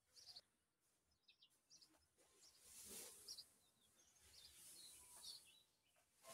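Faint rustle of dry chopped straw being forked and tossed with a pitchfork, swelling twice, with small birds chirping now and then.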